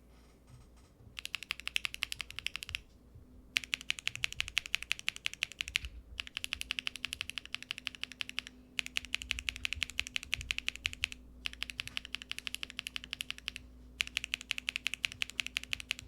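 Fast typing on a mechanical keyboard with Keygeek Y3 linear switches in an aluminium-plate Cycle 7 board with no foam: rapid, even keystroke clacks in six bursts of about two seconds each, with short pauses between them.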